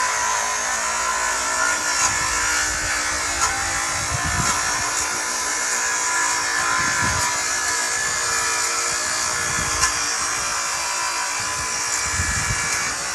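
Power saw with a Diablo blade running steadily as it cuts apart wooden pallets through their nails, with a deeper surge under load every few seconds.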